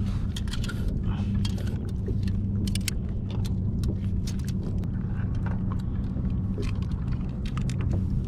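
Many short sharp clicks and light clinks of fishing gear being handled, over a steady low hum.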